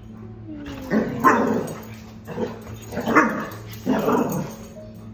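A dog barking in play, several short barks about a second apart, over a steady low hum.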